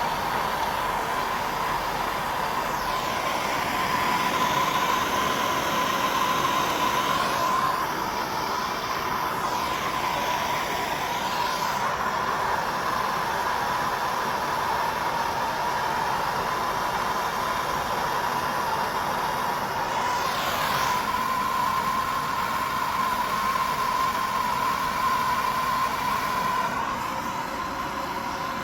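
MAPP gas torch flame burning with a steady hissing rush and a constant high tone running through it, while a copper pipe joint is heated for soldering. The character of the hiss shifts briefly a few times.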